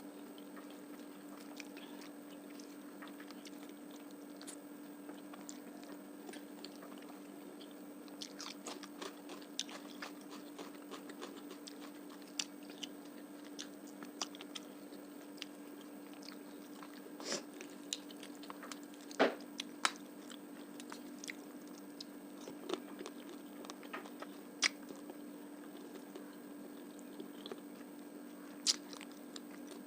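Close-miked chewing of a meal of fish curry, rice and onion: soft wet mouth clicks and scattered crunchy bites, a few sharper ones in the middle stretch, over a steady low hum.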